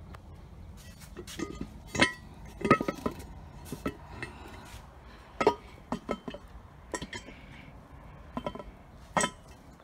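Bolts and washers clinking against a metal transmission bellhousing as two bolts are set into the pump bolt holes by hand: about a dozen irregular sharp metallic clinks, some ringing briefly.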